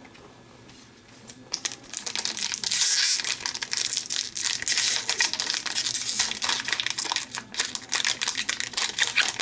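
Wrapper of an Upper Deck Series 1 hockey card pack crinkling and tearing as it is pulled open by hand. The crackling starts about a second and a half in and keeps going.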